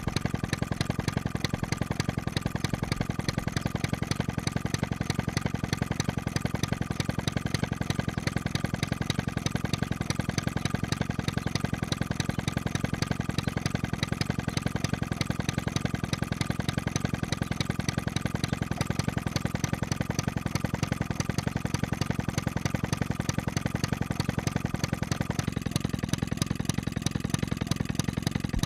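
A small air-cooled 1920s Jacobsen hit-and-miss engine running with a fast, even beat of firing strokes.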